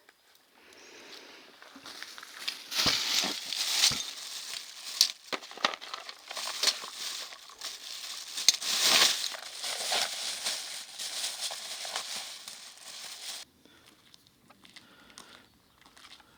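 Rustling, crinkling noise with sharp crackles and a few knocks. It builds up, then cuts off abruptly near the end.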